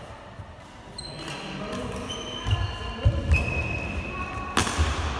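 Badminton rally on a sports-hall court: trainers squeaking in short high chirps on the floor and footfalls thudding as the players move, with a sharp racket strike on the shuttlecock about four and a half seconds in, the loudest sound.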